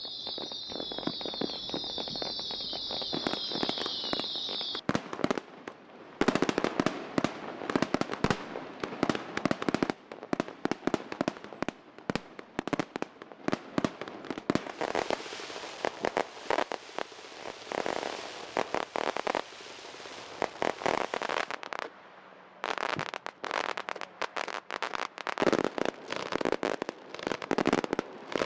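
Fireworks display: a dense stream of crackling and popping shell bursts with sharper bangs scattered through, easing briefly a few times. For the first five seconds a high, rapidly repeating shrill chirping runs over the crackle and cuts off abruptly.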